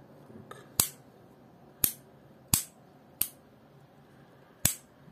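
Five sharp clicks at irregular intervals from the clutch (thumb-bar) mechanism of a partly disassembled Haibo Origin 1 baitcasting reel as it is worked by hand.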